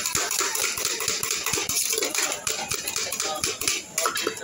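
Puffed rice and spices rattling in a steel mixing tin as the jhalmuri is rapidly tossed and stirred, a fast, continuous clatter of grains and metal.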